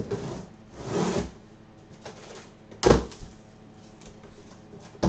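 A large cardboard box being handled and moved: a scrape and a longer sliding swish, then one heavy thud about three seconds in as it is set down, and a small knock near the end.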